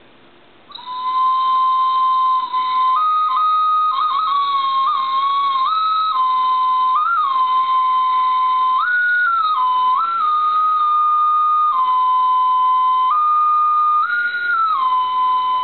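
Clay flute shaped like a crocodile, played by a non-expert: a single piped tone starts under a second in and holds long notes, stepping up between a few close pitches and falling back, mostly to its lowest note.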